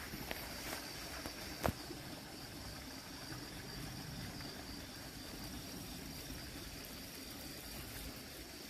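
Insects chirring steadily at a high pitch, with one sharp click about one and a half seconds in and a couple of fainter ticks before it.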